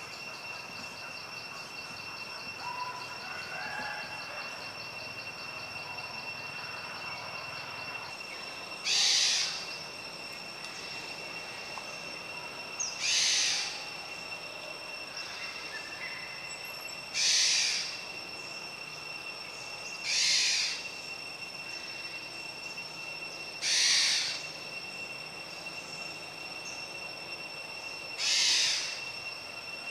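Forest insects: a steady high-pitched whine at two pitches, with six loud short buzzes every three to four seconds, starting about nine seconds in.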